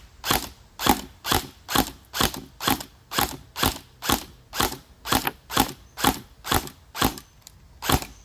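Cybergun M4A1 electric airsoft rifle firing single shots in a steady rhythm, about two a second, each a short sharp mechanical snap of the gearbox cycling.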